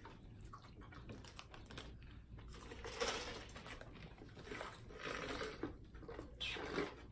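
Close-miked eating sounds: chewing and lip smacking, with scattered small wet clicks and a few short louder stretches of mouth noise.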